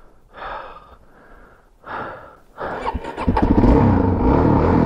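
Suzuki DR-Z400S single-cylinder engine being restarted about three seconds in, catching and running steadily. Before it, a couple of heavy breaths from the rider.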